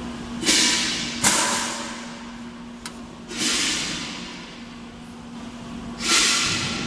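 Automatic air-vent welding machine releasing sharp hisses of air four times, each cutting in suddenly and fading away over about a second, with a steady low hum underneath and a single click midway.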